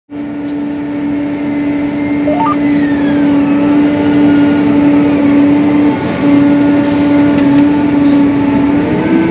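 Tractor engine running steadily under load while pulling a planter, heard inside the cab as a constant deep hum; it dips briefly about six seconds in and rises a little in pitch near the end.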